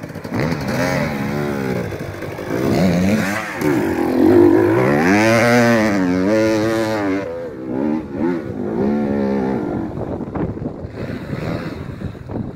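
Off-road engine revving hard and unevenly, its pitch climbing and dropping again and again with the throttle. It is loudest about four to seven seconds in, then turns rougher and quieter after about eight seconds.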